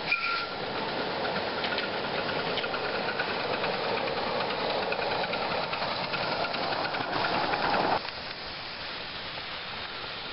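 Miniature live-steam locomotive running past, its steam hissing and its exhaust beating, growing louder until it cuts off suddenly about eight seconds in; a quieter steady hiss of the working loco follows.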